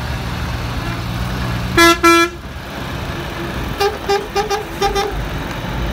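Fire engines' diesel engines running in a low rumble, with two loud horn blasts about two seconds in, then a quick run of about six short honks.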